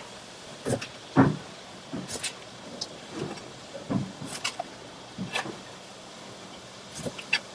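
Irregular knocks and clicks of a knife on a plastic cutting board as gurnards are cut up, the loudest about a second in, over a low steady background hum.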